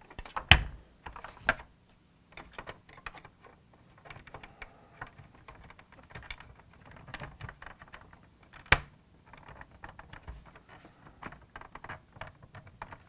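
Hard plastic of a vintage toy car clicking and tapping as it is handled and a door is pressed into its clips, with scattered small clicks and two sharper snaps, one about half a second in and one near the two-thirds mark.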